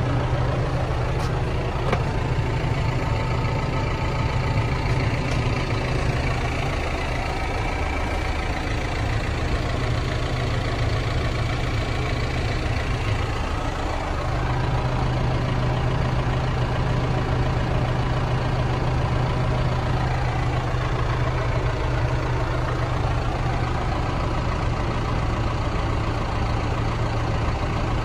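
John Deere 6125R tractor's four-cylinder diesel engine idling steadily, heard from inside the cab; its low drone eases for a few seconds in the middle and then comes back.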